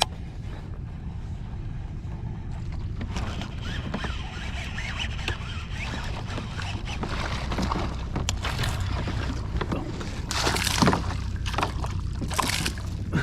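Water splashing and sloshing over a steady wind rumble on the microphone, with two sharp splashes near the end: a small bass thrashing at the surface after striking a topwater rat wakebait.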